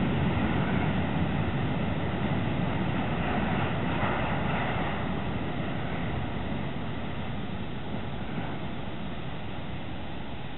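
Freight train's covered hopper cars rolling away on the rails, a steady wheel-on-rail noise that fades slowly as the tail end of the train recedes.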